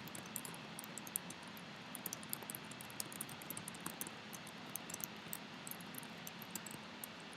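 Fingers typing on a computer keyboard: quick, irregular key clicks, several a second, over a steady hiss.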